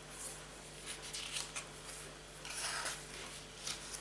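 Paper rustling as the pages of a CD booklet are turned and smoothed flat by hand: several soft swishes over a faint steady hum.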